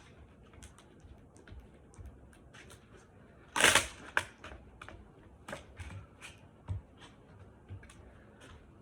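Hands pressing and smoothing grip tape onto a skateboard deck to push out air bubbles, making small scattered scuffs and taps. One louder, short scuff comes about three and a half seconds in.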